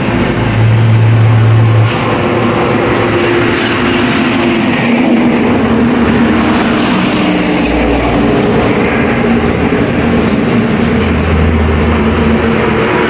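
Heavy diesel road traffic, buses and trucks, passing with a steady engine drone and tyre noise. A loud low steady tone lasts a little over a second near the start.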